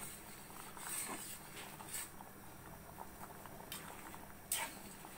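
Macaroni boiling in a pot of water while it is stirred with a metal spoon: soft, busy bubbling with about four sharp clicks of the spoon against the pot.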